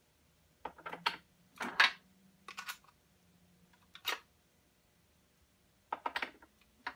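A Lee Auto-Prime hand priming tool clicking and Hornady .308 Winchester brass cases clinking as large rifle primers are seated by hand. About six separate sharp clicks and clacks, the loudest about two seconds in.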